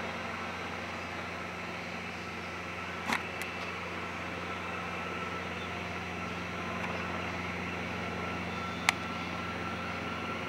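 Aérospatiale Gazelle helicopter in low flight, its Turbomeca Astazou turbine and rotor making a steady hum with a thin, steady high whine. Two sharp clicks, about three seconds in and about nine seconds in.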